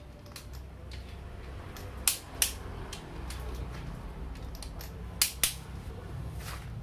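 Two pairs of sharp metallic clicks, a few seconds apart, from a click-type torque wrench as it reaches its set torque while bolts on an Isuzu Panther diesel engine's cylinder head are tightened.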